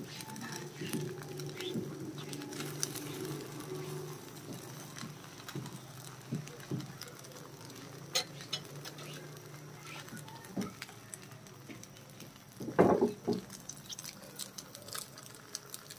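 Metal spatula scraping and tapping in a frying pan as rice-flour batter is spread, then faint scattered ticks as the batter cooks. A short, louder sound about 13 seconds in.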